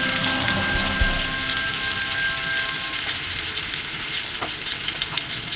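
Marinated chicken leg quarter sizzling steadily in hot oil and melting butter in a frying pan, an even hiss with a few small pops.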